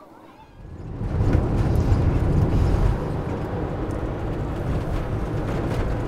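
A steady low rumbling noise that starts about a second in and holds at one level.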